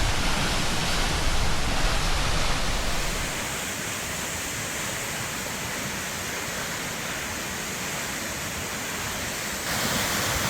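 Comet Falls, a tall waterfall of about 320 feet, heard up close as a steady rush of falling water; it softens about three seconds in and steps up abruptly again near the end.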